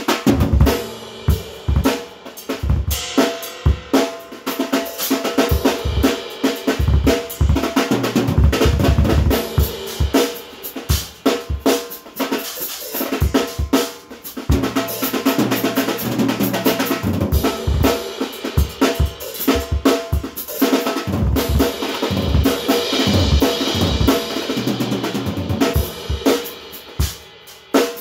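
Drum kit played with Regal Tip Blastick rods: bass drum, snare and cymbals in a busy, continuous pattern of strikes.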